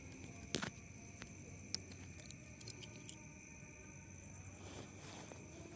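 Night insects trilling steadily in several high continuous tones, with a sharp click or knock about half a second in and a fainter one a little over a second later.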